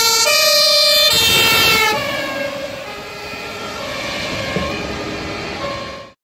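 Two-tone siren of a MAN aerial platform fire truck on an emergency run, alternating between a high and a low tone. About two seconds in, the siren's pitch drops and it turns quieter as the truck passes and drives away, under the truck's road noise. It cuts off abruptly just before the end.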